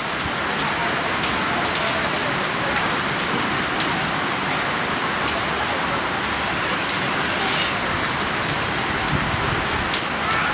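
Steady hiss of falling water with a few faint scattered ticks.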